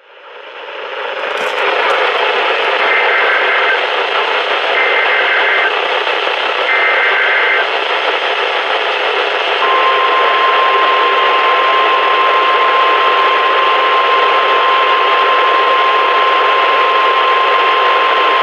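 NOAA Weather Radio alert over loud static hiss: three short bursts of SAME digital header data, each about a second of two-tone warbling, then, about halfway through, the steady 1050 Hz warning alarm tone, the signal that a warning (here a Severe Thunderstorm Warning) is being issued.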